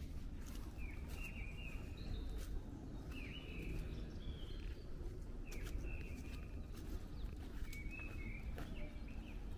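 A bird chirping repeatedly, short high notes about once a second, over footsteps on a path and a steady low outdoor rumble.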